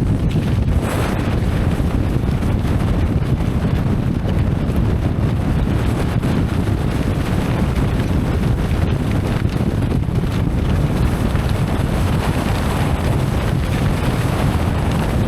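Strong gusty wind blowing across the microphone, a loud steady rumble that rises and falls a little.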